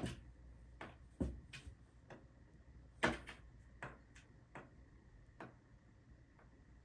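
A kitten's paws and claws tapping and scratching on a cardboard box as it bats at a hanging string: about ten irregular light taps and scrapes, the loudest about three seconds in, dying away after about five and a half seconds.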